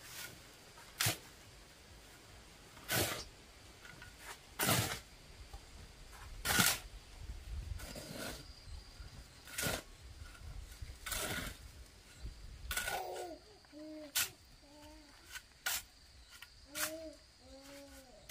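Steel shovel scraping and scooping through a pile of sand and cement being mixed by hand, one stroke every second and a half to two seconds. Several short animal calls come in over the last few seconds.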